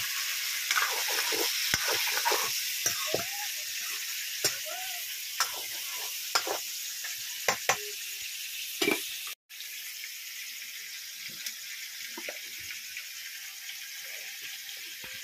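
Chicken pieces and onions sizzling in hot oil in a metal kadai, with a metal spatula scraping and knocking against the pan as they are stirred. The hiss is steady, and the scrapes and clicks come thickest in the first half.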